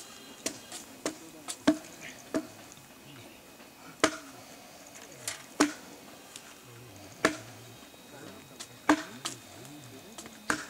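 Chopping at felled chir pine: about a dozen sharp wooden knocks at uneven intervals, some in quick pairs.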